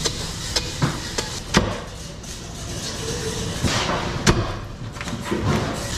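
Sharp knocks of a heavy knife chopping into a whole yellowfin tuna's head and backbone on a plastic cutting board: about half a dozen blows at uneven spacing, the loudest about four seconds in.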